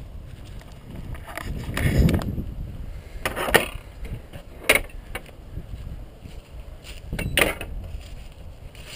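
Wooden five-bar field gate being opened and closed by hand: several sharp knocks and clanks of its metal latch and timber, spread over a few seconds.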